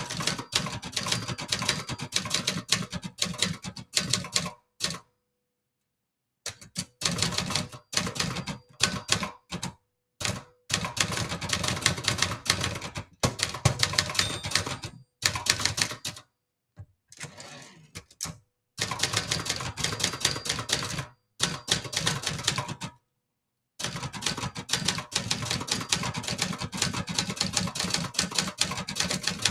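Keystrokes of a 1960s Brother Charger 11 manual portable typewriter: runs of rapid typebar strikes broken by a few short pauses, with a carriage return partway through.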